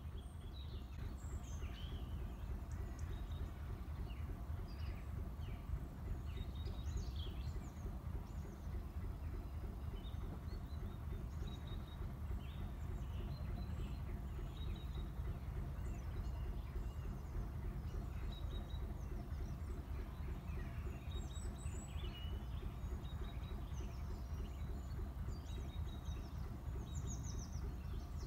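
Small songbirds chirping and calling on and off throughout, over a steady low rumble.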